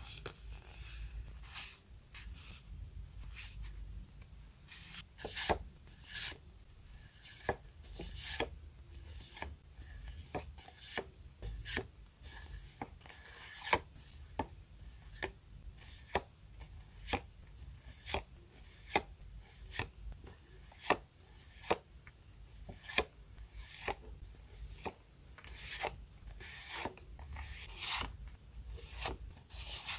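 Paper sticker sheets and cards being shuffled and flipped one by one by hand. Soft rustling and rubbing at first, then from about five seconds in a crisp paper flick roughly once a second as each sheet is moved to the back of the stack.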